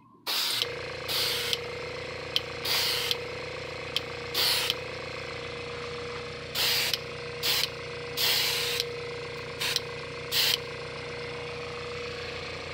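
Airbrush spraying a light overspray of thinned metallic gold paint in about a dozen short hissing bursts as the trigger is worked, over the steady hum of its air compressor.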